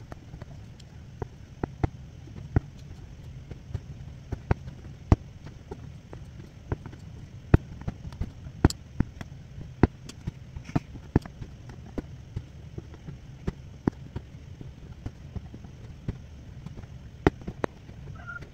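Aari hook needle punching in and out of fabric stretched taut on an embroidery frame while chain-stitching an outline: a run of sharp, irregular taps and pops, about one or two a second, over a low steady hum.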